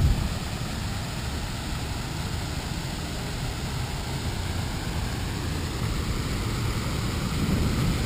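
Steady rushing of an artificial waterfall pouring over a rock wall into a pool, mixed with a low rumble of wind on the microphone.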